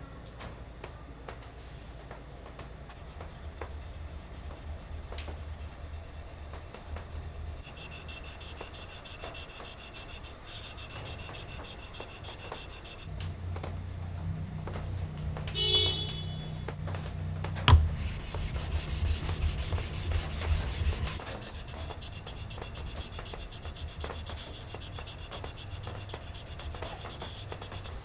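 A steel chisel being rubbed back and forth on a wet whetstone: a gritty scraping that grows heavier past the middle. A brief squeak comes a little over halfway through, followed by a single sharp knock.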